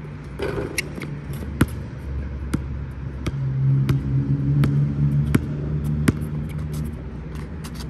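Basketball dribbled on an outdoor asphalt court, sharp bounces about once a second. Underneath is the low hum of a passing road vehicle, which grows louder in the middle.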